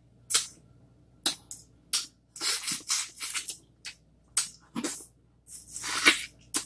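Close-up mouth sounds of eating boiled crawfish: a quick, irregular run of short, wet slurps and sucks as the meat and juice are sucked from the shells.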